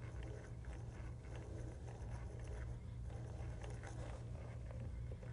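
Faint, irregular scratching of a hand-cranked drill's 3/16-inch bit boring down through a balsa wood blank, over a steady low hum.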